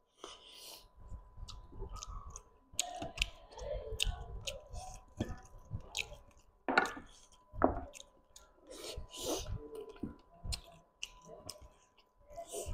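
Close-miked chewing of curried chicken eaten by hand: wet smacks and clicks of mouth, lips and fingers in irregular clusters.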